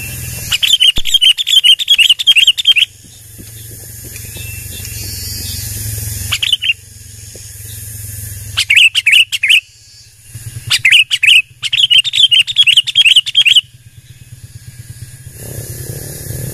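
Sooty-headed bulbul calling in bouts of rapid, wavering chattering notes, each bout lasting one to three seconds with pauses between, over a low steady rumble.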